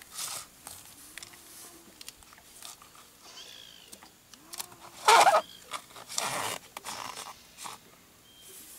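Nylon shooting line being handled and wrapped along a wooden speargun, with soft rustling and scraping, a loud rasp of the line about five seconds in and a shorter one a second later. Extra wraps of line are being added so the spear can pull line off the reel when fired.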